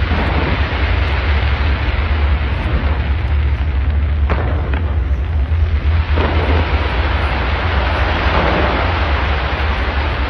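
Fireworks going off in a dense, continuous barrage of crackling and bangs over a steady low rumble, with sharper reports about four and six seconds in.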